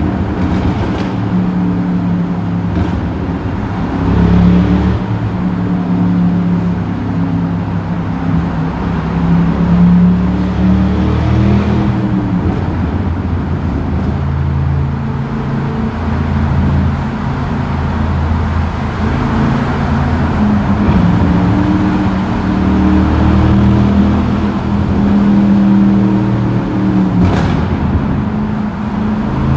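The 6.0-litre LS2 V8 of a Vauxhall Monaro VXR running hard in a road tunnel, its deep engine note rising and falling again and again as it is revved up and eased off.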